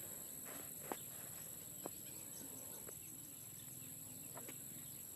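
Faint outdoor ambience with a few soft clicks or steps, roughly one a second, over a steady high-pitched hum.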